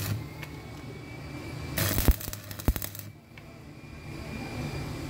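Stick welding arc crackling with a low hum as the electrode welds onto a broken bolt. It cuts out just after the start, is struck again about two seconds in with a couple of sharp taps, and crackles for about a second before stopping.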